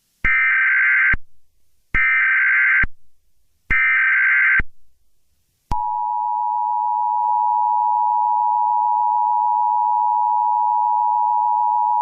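Emergency Alert System tones: three short bursts of the SAME header's data warble, then, about halfway through, the steady two-tone EAS attention signal, announcing that an emergency alert message follows.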